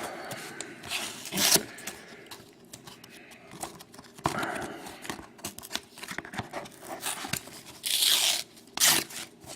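A trading-card box-topper pouch being torn apart by hand, in irregular ripping and crinkling bursts. The loudest rips come near the start, about halfway through, and twice near the end.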